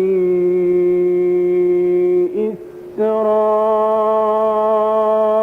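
A male voice chanting a Quran recitation in melodic tajweed. It holds two long steady notes on the words 'ila' and 'bani', with a brief breath between them a little over two seconds in.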